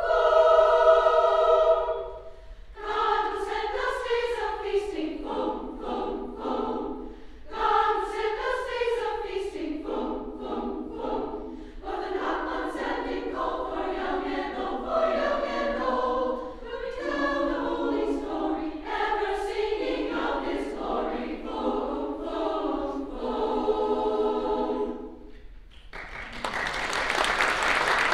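Women's choir singing a carol in parts, with short breaks between phrases; the singing ends about 25 seconds in and the audience breaks into applause near the end.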